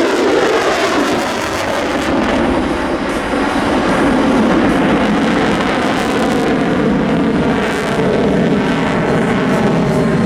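An F-35A Lightning II's F135 turbofan engine running, a loud steady jet noise.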